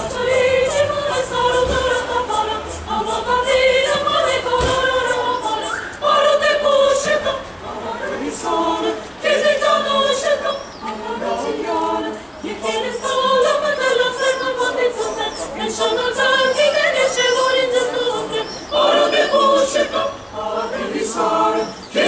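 Mixed-voice chamber choir singing a cappella, in phrases of a few seconds separated by short breaks.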